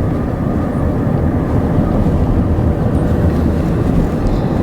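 Steady low rumble of a vehicle on the move, engine and road noise heard from inside the cabin.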